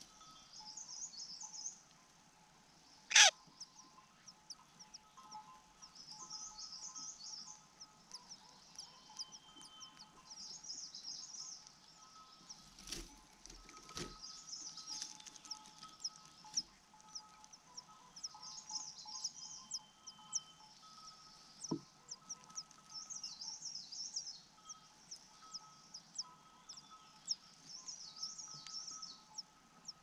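Birds chirping in repeated high-pitched twittering bursts every few seconds, with one loud, sharp call about three seconds in, over soft background music.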